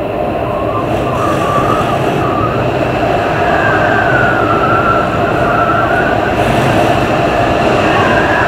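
Storm-force wind blowing hard and steadily, with a wavering high whistle that rises and falls over the rushing noise.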